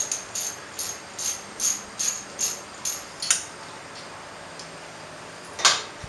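Socket ratchet clicking in a steady rhythm, a little over two clicks a second, while bolts on the engine's timing-chain guide are undone. The clicking stops about three seconds in with one sharper click, and a loud metallic clink of tool or part follows near the end.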